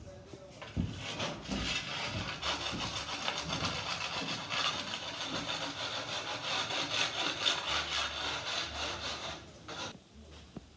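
Hand saw cutting through orange plastic electrical conduit with rapid back-and-forth strokes, stopping shortly before the end.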